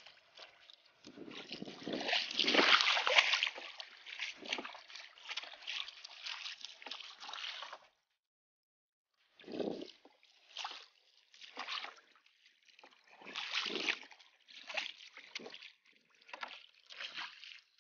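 A short wooden paddle dipping and splashing in sea water beside a small outrigger boat, in irregular strokes roughly once a second, with water sloshing against the hull. The sound cuts out completely for about a second just past the middle.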